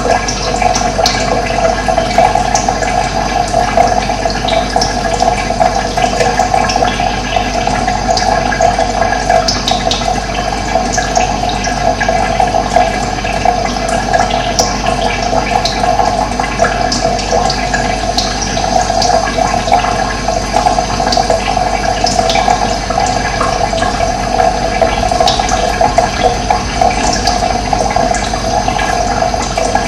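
Running water, a steady loud rush, with scattered faint bird chirps over it.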